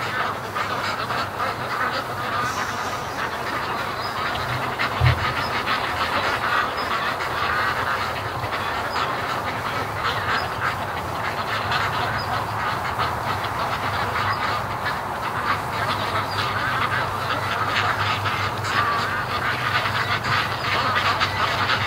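A flock of white Pekin ducks quacking and chattering continuously as they come home, many calls overlapping into a steady din. A brief low thump sounds about five seconds in.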